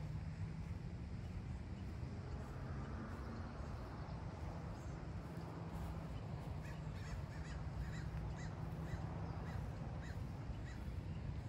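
A bird gives a quick run of short, repeated calls starting about six seconds in, over a steady low rumble.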